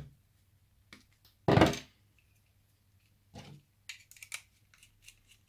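Small hand tools and wiring parts handled on a wooden tabletop: a loud knock about one and a half seconds in and a softer one a couple of seconds later, then a quick run of light clicks as a screwdriver works the terminal screw of an electrical plug.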